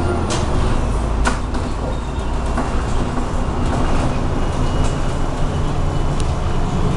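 Inside a MAZ-107 city bus under way: a steady low engine hum and road rumble, with scattered short rattles and clicks from the body and fittings. The engine hum drops lower in pitch just after the start.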